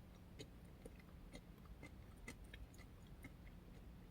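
Near silence with faint, irregularly spaced small clicks of quiet chewing on granola parfait.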